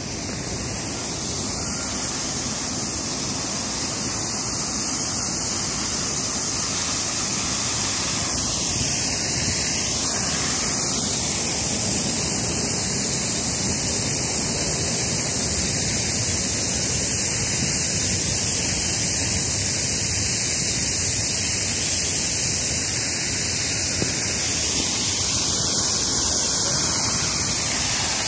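Plaza water fountain, its jets splashing and spraying in a steady rushing hiss that grows louder over the first dozen seconds and then holds.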